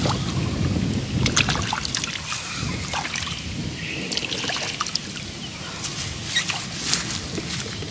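Hands sloshing and rummaging in shallow muddy water, with small irregular splashes and drips as snails are groped for and lifted out.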